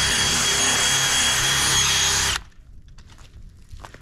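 Cordless drill spinning a buffing wheel against a plastic kayak hull: a steady motor whine that cuts off suddenly about two and a half seconds in.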